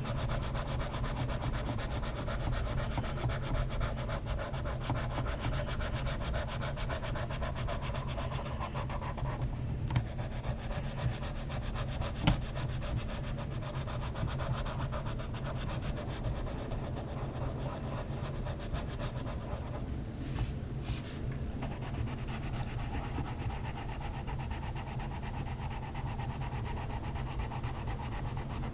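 Colored pencil rubbing and scratching on paper in steady shading strokes, pausing briefly about nine seconds in and again about twenty seconds in, with a couple of small clicks. A low steady hum runs underneath.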